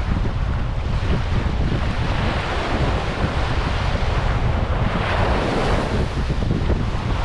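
Ocean waves breaking and washing up a beach, with wind rumbling on the microphone; a wave surges in brighter and louder about five seconds in.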